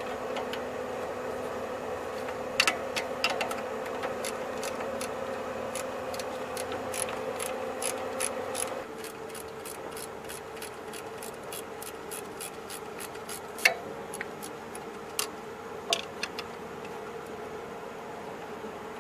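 Metal wrench clicking and clinking against a bolt as a 12 mm bolt is worked loose by hand, with a run of evenly spaced clicks in the middle and a few louder knocks later. A steady hum runs underneath and drops in level about nine seconds in.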